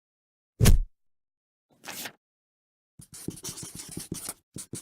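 Short sound effects: a loud thud about half a second in, a brief swish near two seconds, then about two seconds of rapid scratching strokes like a pen scribbling.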